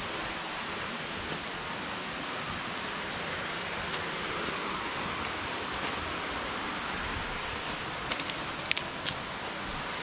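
Steady rushing noise of a waterfall and its stream, with a few light clicks near the end.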